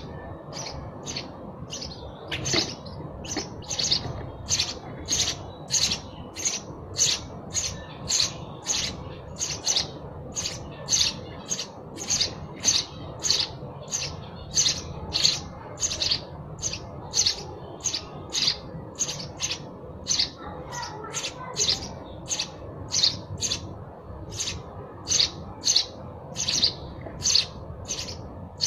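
Sparrow chirping over and over: a steady run of short, high chirps, about two a second.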